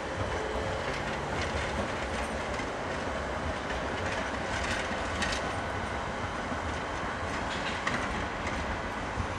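Bombardier AGC regional train running through a rail yard, its wheels clacking irregularly over rail joints and points under a steady rumble, with a faint thin wheel squeal around the middle.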